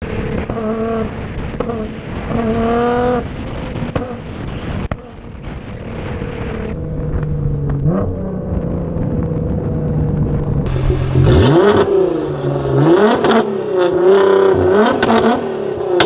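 Nissan GT-R R35's twin-turbo V6 pulling hard under acceleration, revs climbing and dropping twice, then running more steadily. In the last few seconds it is revved in quick sharp blips that rise and fall, with repeated exhaust pops and cracks, the sign of the E85 tune spitting flames.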